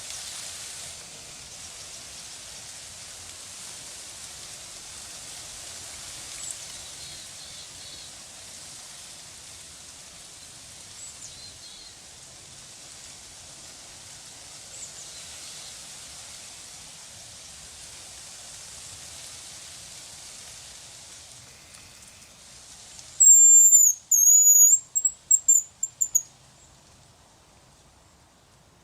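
Faint high bird chirps over a steady outdoor hiss, then about 23 seconds in a loud, very high, thin whistle: a hazel grouse's song, one long wavering note followed by several short broken notes over about three seconds.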